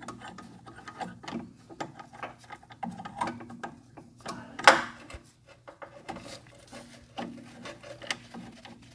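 Small, irregular metal clicks and rubbing as the threaded fitting of a self-leveling suspension hydraulic hose is screwed in by hand, with one sharper click about halfway through. The threads are clean and it turns on smoothly.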